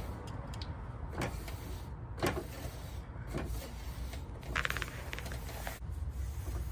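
A rag with rubbing alcohol wiped along the painted underside of a car's side skirt: three short rubbing strokes about a second apart, over a steady low rumble. A brief rapid rattle comes about two thirds of the way in.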